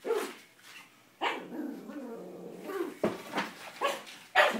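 Small dog barking: several short, sharp barks, with a longer growling stretch a little over a second in.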